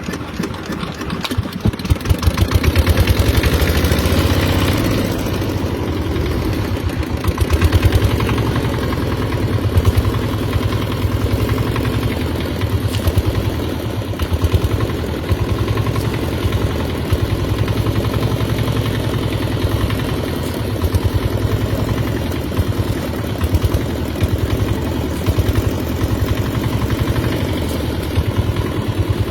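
An engine running steadily at a constant speed, with a rapid, even firing pulse.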